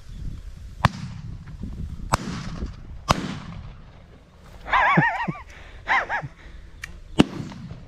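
Four shotgun shots, sharp cracks with an echo trailing after each: three about a second apart, then a louder one near the end. In between come two short, wavering animal calls about a second apart.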